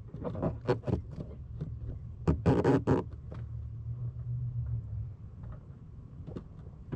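Rustling, scraping and clicking of plastic tubing and wiring being worked through a rubber firewall grommet, with a cluster of louder clicks about two and a half seconds in, over a steady low hum.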